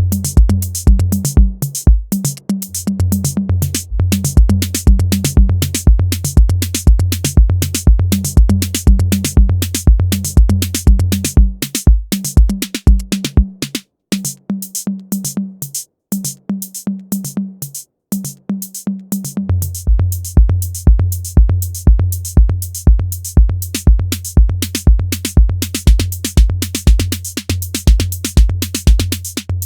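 Roland TR-8 drum machine playing an electronic beat: a kick about twice a second under fast hi-hat ticks and a low pitched tone. The kick drops out about halfway through for roughly five seconds, then comes back in.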